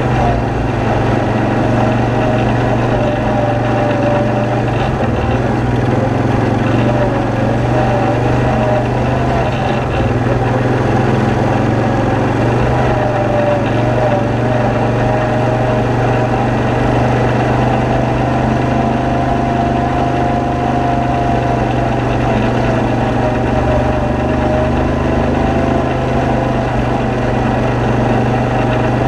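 ATV engine running steadily under way on a dirt trail, its pitch wavering slightly up and down with the throttle.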